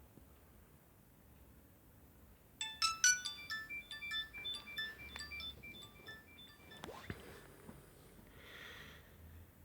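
Nokia 6233 mobile phone playing a polyphonic ringtone through its speaker: a short electronic melody of quick notes that starts about two and a half seconds in and stops after about four seconds.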